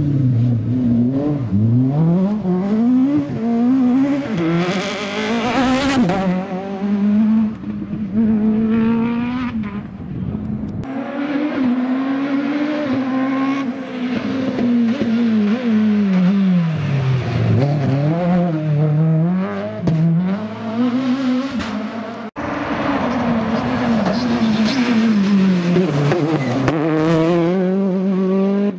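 Rally car engines revving hard, the pitch climbing and dropping again and again as the cars accelerate, shift and lift off past the microphone, in three passes joined by sudden cuts.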